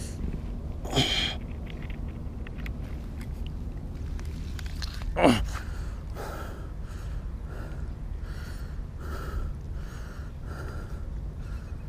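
A man breathing hard as he hoists a heavy barracuda onto a hanging scale, with a short falling grunt about five seconds in and soft repeated breaths after it, over a steady low rumble.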